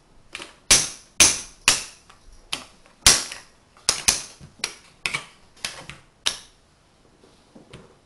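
Tegu magnetic wooden blocks clacking as they snap together and are stacked: about a dozen sharp, irregular click-clacks over about six seconds, then a few fainter ones near the end.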